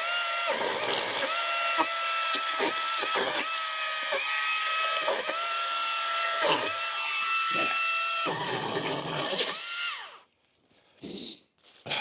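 Greenworks battery-powered commercial pole saw running, cutting through holly branches: a steady electric motor whine with brief dips in pitch and level. It cuts off about ten seconds in.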